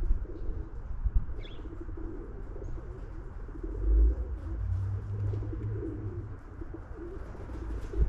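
Pigeons cooing continuously in low, wavering calls. A single short bird chirp comes about a second and a half in, and a low rumble at the bottom of the range swells loudest about four seconds in.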